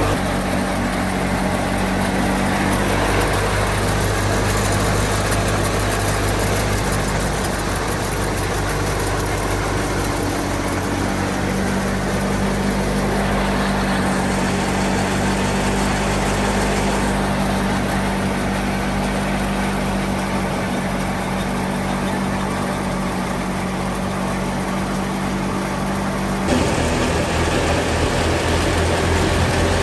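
Fiat 480 tractor's three-cylinder diesel engine running steadily under load, driving a wheat thresher whose drum adds a dense rushing noise over the engine hum. The engine note shifts abruptly near the end.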